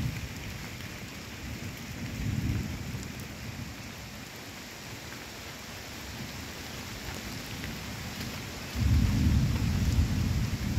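Steady rain falling on rainforest foliage during a tropical thunderstorm, with thunder rumbling low: a soft roll about two seconds in and a louder, deeper rumble starting near the end.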